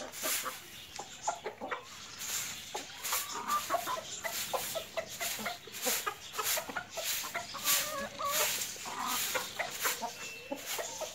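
Short hand broom sweeping loose litter across a concrete floor in brisk swishing strokes, one or two a second, with chickens clucking in the background.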